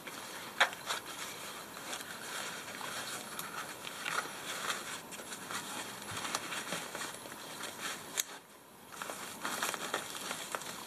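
Socket tool roll being handled and rolled up: fabric rustling with scattered small clicks of the sockets, and a sharp click about half a second in and another near eight seconds.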